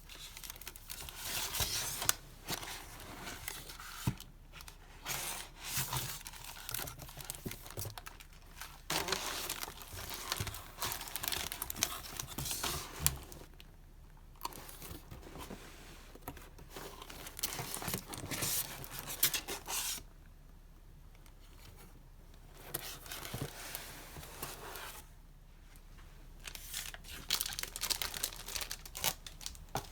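Packaging being unwrapped by hand: wrapping crinkling and tearing in bursts, with a few brief pauses and some sharp clicks.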